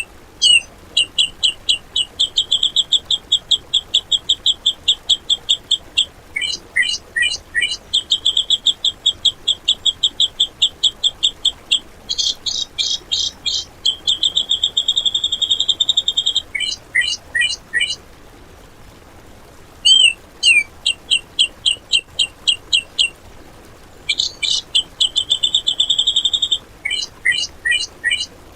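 Cucak jenggot (grey-cheeked bulbul) singing: rapid runs of sharp, harsh repeated notes in bursts of several seconds each, with short pauses between them. These are the fast 'tembakan' shooting phrases prized in a singing bird.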